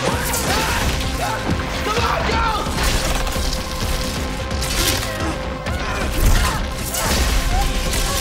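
Film sound design of electrical arcs crackling and zapping in repeated bursts over a deep low rumble and a steady hum, mixed with a dramatic music score.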